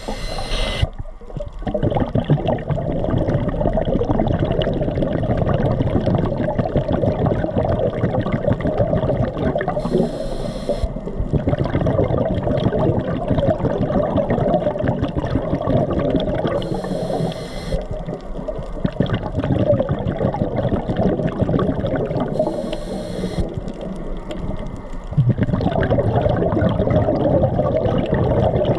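Underwater water noise picked up by a camera submerged at a coral reef: a steady, muffled sloshing and crackling, with a brief higher hiss four times, roughly every six seconds.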